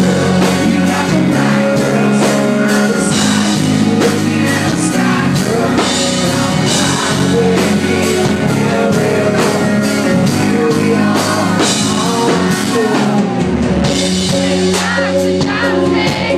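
Live band playing a country-rock song: a male lead vocal sung over electric guitar and a drum kit, loud throughout.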